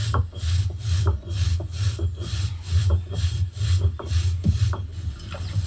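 Stone roller rasping back and forth over a flat grinding stone, grinding spice paste by hand, in an even rhythm of about two to three strokes a second.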